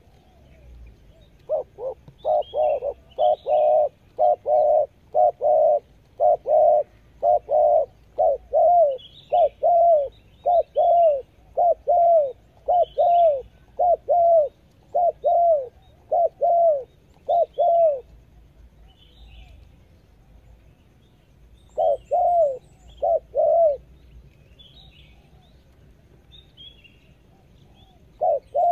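Spotted dove cooing in a long, fast, regular series of short arched notes, about two a second, which stops about two-thirds of the way through; a brief run of four more notes follows, and the series starts again at the very end. Faint chirps of small birds sound higher up in between.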